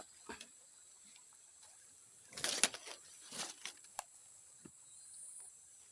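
Steady high chirring of night insects such as crickets, with a few brief rustling and handling noises, the loudest about two and a half seconds in.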